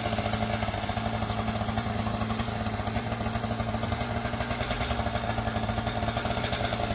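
An engine idling steadily with a rapid, even rattle and a constant low hum.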